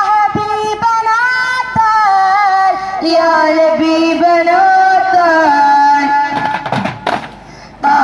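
A Milad-un-Nabi devotional song sung by a voice with a wavering, ornamented melody, over occasional duff frame-drum strikes. Near the end the singing stops and a quick run of drum strikes follows.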